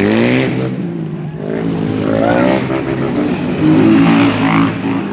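Motorbike engines revving, their pitch rising and falling several times, with more than one engine running at once.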